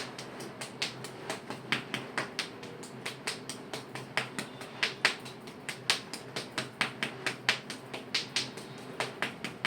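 A steady run of sharp clicks, about four a second, over a faint steady hum.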